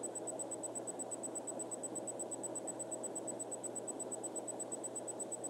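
Steady hiss and low electrical hum with a faint high-pitched tone pulsing several times a second, no distinct sounds: recording noise from the room and equipment.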